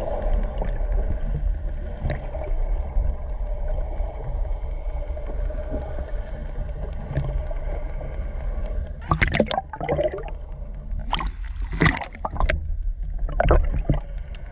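Underwater ambience picked up by a camera in open sea: a steady low rumble of water. From about nine seconds in it is broken by several loud, short bursts of bubbling gurgles.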